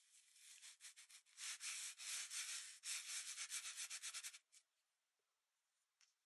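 Kinetic sand crunching and scraping as it is pressed and worked around a plastic cookie cutter: a quick run of scratchy strokes that stops about four and a half seconds in.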